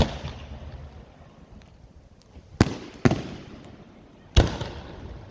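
Aerial fireworks bursting: four loud booms, one at the start, two about half a second apart around two and a half to three seconds in, and one near the end, each trailing off in a decaying rumble.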